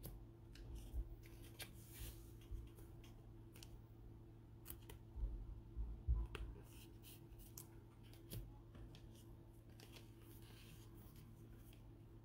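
Faint clicks and plastic rustles of trading cards being handled and slid into clear plastic card sleeves by hands in nitrile gloves, with a few soft thumps about five to six seconds in, over a steady low hum.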